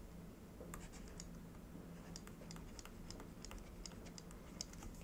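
Stylus tapping and scratching on a tablet screen while handwriting: a string of faint, irregular light clicks over a low steady hum.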